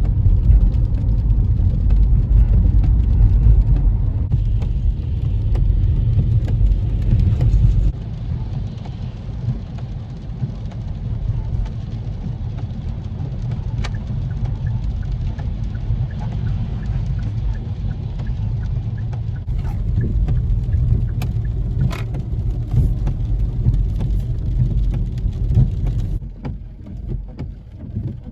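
Car driving: steady road and engine rumble, louder for the first several seconds, then easing off near the end.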